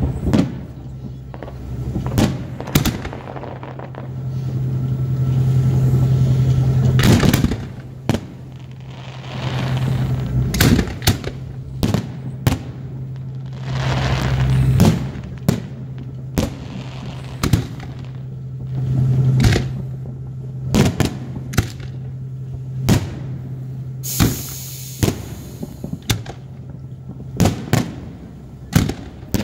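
Aerial fireworks shells bursting overhead: many sharp bangs, often in quick succession, with a few longer swells of sound between them, over a steady low hum.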